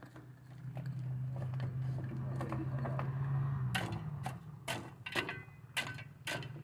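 A steady low hum, then from about halfway on a string of sharp, irregular knocks and scrapes, about six in two and a half seconds: a long-handled tool working stony soil beside a PVC drain pipe.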